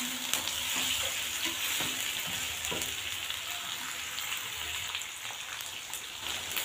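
Chicken pieces sizzling in oil in a wok with garlic-ginger paste and whole spices, stirred with a spatula that gives a few light scrapes against the pan. This is the frying (bhuna) stage, where the meat is lightly browned before yogurt goes in.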